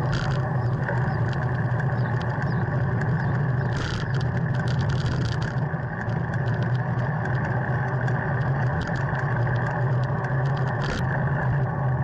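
Steady wind and road rumble picked up by a camera mounted on a moving road bike, with a few sharp knocks from bumps, one about four seconds in and another near the end.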